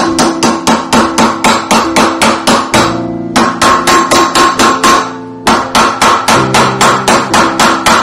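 Mallet blows on a silver ring fitted over a steel ring mandrel, shaping it round: rapid, even strikes about four or five a second, each with a short metallic ring, with two brief pauses about three and five seconds in. Background music plays underneath.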